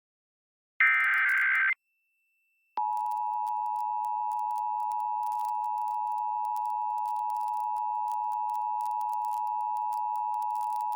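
Emergency Alert System signal for a Required Monthly Test. It starts with the last of the three SAME header data bursts, a harsh digital screech just under a second long. After a short gap the EAS attention signal begins about three seconds in: a steady two-tone 853 and 960 Hz tone held to the end.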